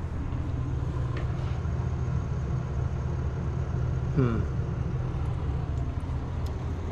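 A steady low hum, with one short falling voice-like sound about four seconds in.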